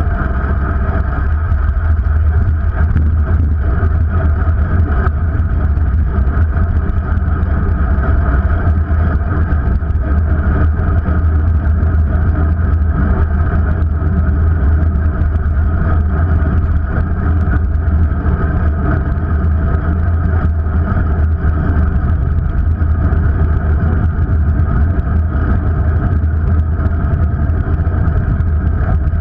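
Steady low rumble of wind buffeting and road vibration on a bicycle-mounted action camera while riding, with traffic noise mixed in.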